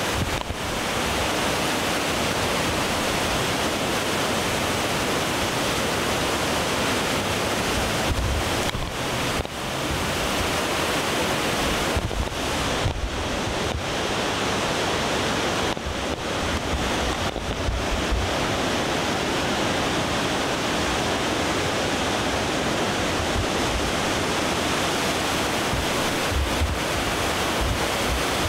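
Steady rushing of a flood-swollen river's muddy rapids churning through a rocky channel, with wind buffeting the microphone in low bumps now and then.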